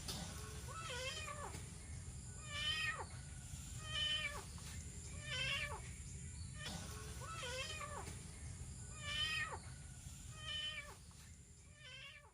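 A rescued kitten meowing over and over, about eight cries spaced roughly a second and a half apart, over a steady low hum.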